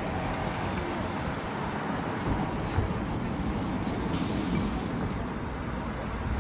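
Steady outdoor street noise with a low rumble, and a car passing close by about four seconds in, its tyres giving a brief hiss that fades away.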